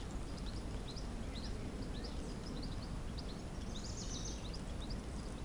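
Small birds chirping in the background, a scatter of short, quick high chirps, over a steady low outdoor rumble.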